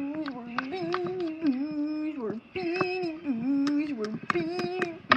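A high voice singing a wordless tune in held notes with a wavering pitch, stopping briefly about halfway through. Several sharp taps and clicks come over it as plush toys are shaken about by hand.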